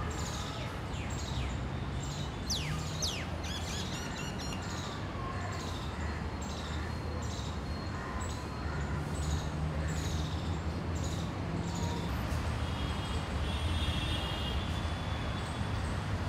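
Birds chirping in short, high, repeated calls about once or twice a second over a steady low rumble. About twelve seconds in the chirping stops and a faint high trill takes over.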